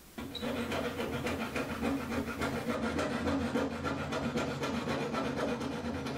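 Flush trim saw cutting plywood at the corner of a boat's seat panel: quick rasping strokes, several a second, over a steady low hum.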